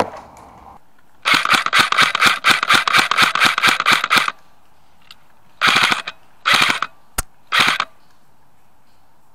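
Airsoft electric rifle (AEG) firing close by: a run of rapid shots at about six a second for some three seconds, then three short bursts and a single shot.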